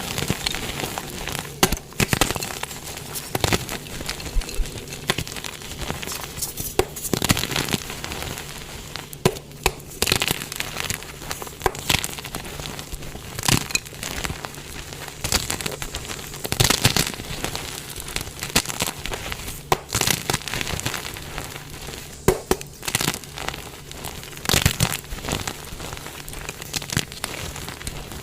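Dyed gym chalk blocks being crushed: continuous dry crumbling and crackling, broken by sharp crunches every second or few as each piece gives way.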